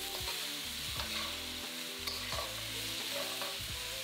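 Chicken, onion, red pepper and pineapple chunks sizzling in a hot wok as they are stir-fried, with a metal spatula scraping and knocking against the pan now and then.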